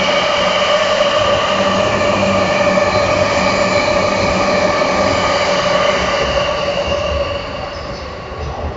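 JR E657 series limited-express electric train running past a platform at speed: a loud, steady rush of wheels on rail with several steady high ringing tones over it. The sound dies away from about seven seconds in as the last cars go by.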